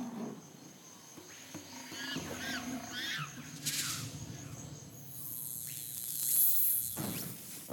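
Forest ambience in a logo soundtrack: several short bird chirps, pitch sweeping up and down, over a faint insect-like background. Near the end a high, thin shimmering sound swells and then cuts off.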